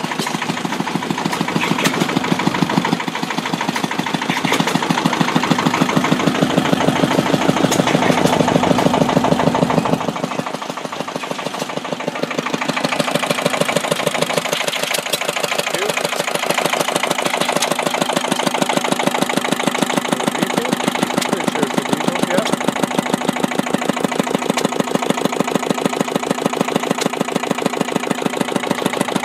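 Vintage small stationary gas engine running steadily, with an even, rapid beat.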